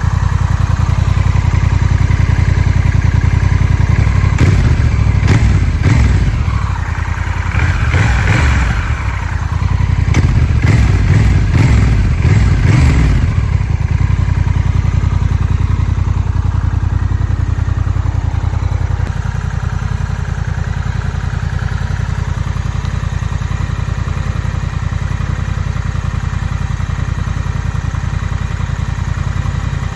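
270-degree-crank parallel-twin motorcycle engine running. It is revved in several surges in the first half, with some clattering, then settles to a steady idle.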